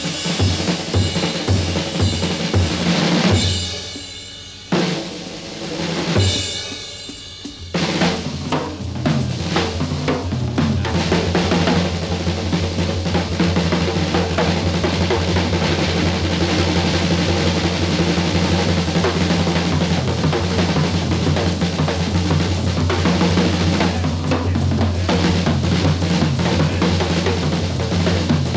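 Jazz drum kit solo. Quick strokes open it, then two cymbal crashes are left to ring out a few seconds in. From about eight seconds in comes a dense, unbroken roll on the drums.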